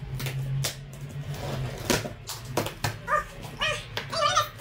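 Packing tape on a cardboard box being slit and torn open with a pen: sharp scrapes and rips of tape and cardboard. From about three seconds in, a run of short high-pitched whining sounds.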